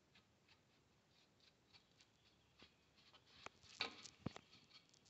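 Paintbrush bristles scrubbing dust and rust off a rear drum brake's backing plate, shoes and springs: faint scratchy strokes that get louder and busier near the end, with one sharp tap about four seconds in.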